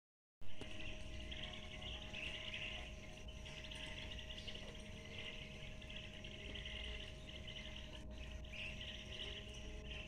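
A short pop as the recording starts, then a faint, dense chorus of high chirping from many small animals that swells and fades in waves, over a steady low hum.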